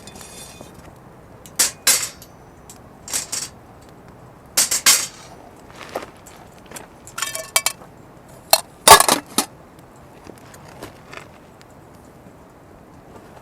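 Camping gear being handled: short, separate clinks and clatters, a few with a brief metallic ring, the loudest about nine seconds in.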